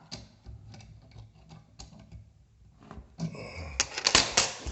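Small clicks and knocks as the CNC 3018 Pro's spindle is handled in its holder and the clamp is tightened. The clicks are sparse at first, then a denser, louder run of clicking and rattling comes in the last second and a half.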